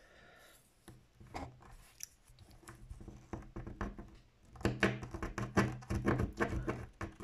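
Fingernail scratching the latex coating off a paper scratch-off lottery ticket in quick repeated scrapes. The scrapes are sparse at first and turn dense and louder about four and a half seconds in. The coating is stiff and hard to rub off.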